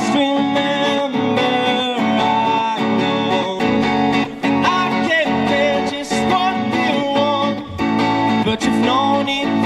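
Music led by guitar: plucked and strummed strings with a melody gliding above them, and no words sung.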